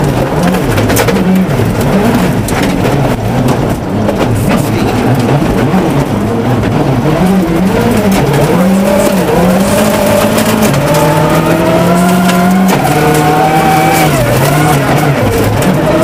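Ford Focus WRC's turbocharged four-cylinder engine at full stage pace, heard from inside the cabin, revving up and down with quick steps in pitch at the gear changes. Sharp clicks and clatter from gravel striking the underside of the car.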